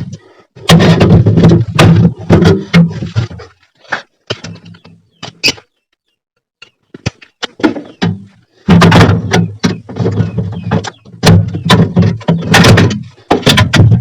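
Work noise from dismantling a refrigerator's freezer section. Three loud rough stretches of a few seconds each carry a steady low hum, and scattered clicks and knocks fall between them.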